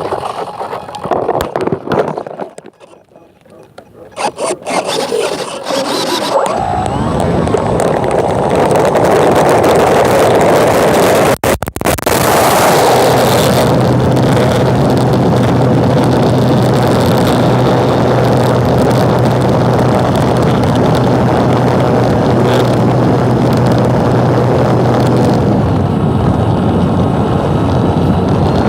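Scraping and handling noise, then about six seconds in a small aircraft engine starts and runs steadily and loudly, with a steady low drone through the middle.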